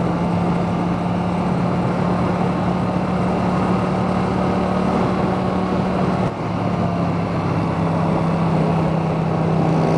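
Yamaha MT-07 parallel-twin engine through an Akrapovic titanium exhaust, running at steady revs with a low rumble and a brief dip about six seconds in. Heard from inside a full-face helmet, with wind noise over the engine.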